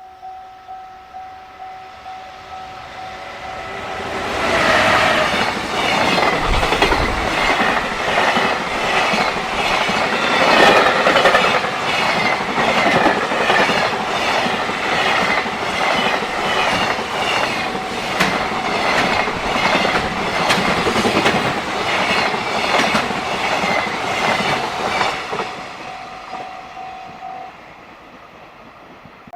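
A freight train passing at speed over a level crossing, its wagon wheels clacking steadily over the rail joints for about twenty seconds before fading away. The crossing's warning bell rings before and after the train and stops near the end.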